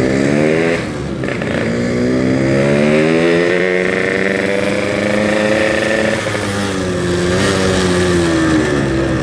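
Yamaha RX-King's two-stroke single-cylinder engine pulling through traffic, its pitch rising and falling with the throttle. There is a brief drop about a second in, then a climb that holds and eases off after about six seconds.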